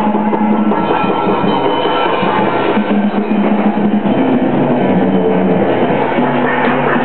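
Live improvised music from a small experimental ensemble: busy drum and percussion playing over sustained low notes that change pitch every second or so.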